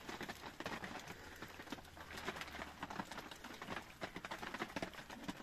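Clear plastic sheeting crinkling and rustling in quick, irregular crackles as it is pulled and tied over a rock overhang.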